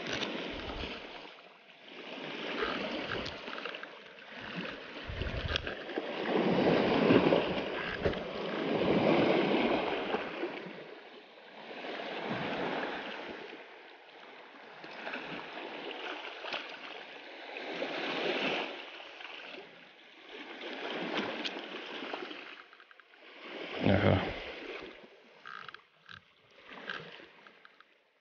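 Small waves washing and lapping against a rocky shore, rising and falling in swells every few seconds. About three-quarters of the way through there is one short, louder thump.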